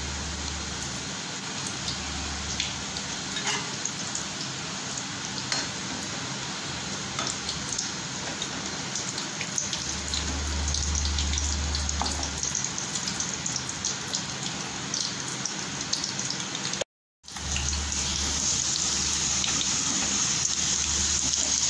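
Thin cassava chip slices deep-frying in hot oil: a steady bubbling sizzle scattered with small crackles. The sound breaks off for a moment near the end.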